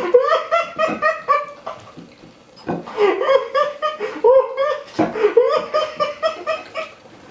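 A person laughing hard in three long bouts of high-pitched, rapidly pulsing belly laughter.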